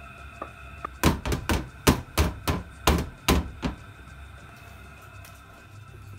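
A rice cooker's metal inner pot full of batter knocked down against a hard surface about ten times in quick, uneven succession, to knock the air bubbles out so the cake rises evenly.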